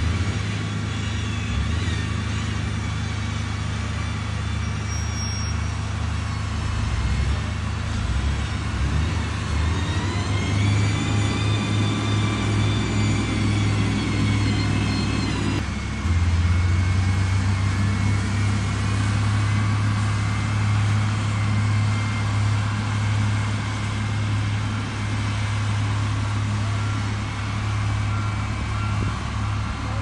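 XCMG motor grader's diesel engine running steadily under load with a deep drone. About ten seconds in, a whine rises and holds for several seconds as the engine works harder. The sound changes abruptly at about sixteen seconds and then runs steadily again.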